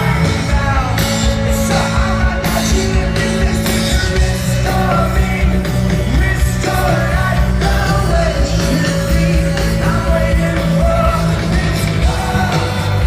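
Live rock band playing loudly, with a steady low end and singing over it.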